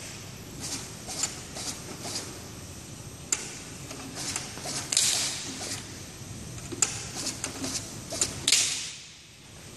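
Automatic flat labeling machine running, with a steady low hum under irregular clicks and rattles as plastic parts ride the conveyor and the label web is fed. Twice, about halfway through and near the end, a louder hissing rasp lasts about half a second.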